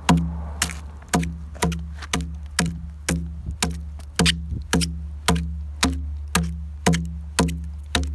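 Deer-antler adze hewing into a dugout-canoe log in a steady rhythm, about two blows a second, each a sharp knock with a short ringing tail.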